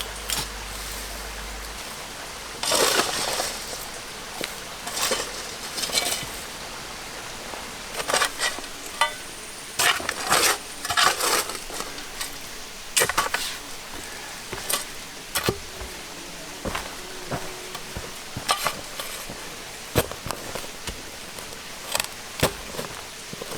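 Kitchenware clinking and scraping: irregular metal-on-crockery clinks and short scrapes, roughly one every second, over a steady faint hiss.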